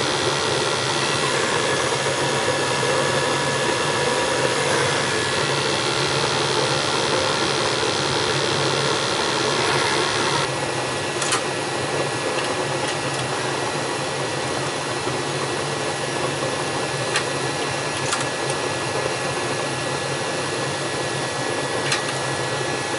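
80-percent gas furnace running steadily during a combustion test, its burners firing with the motors humming. A higher hiss cuts out about ten seconds in, and a few light clicks come after.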